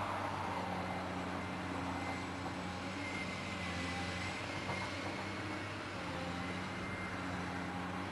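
Cat 365C L excavator's C15 diesel engine running steadily under working load as it backfills, with a faint high whine coming and going partway through.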